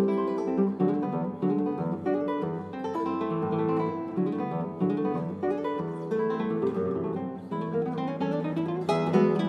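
Background music: a piece of quick plucked notes over a held low bass note.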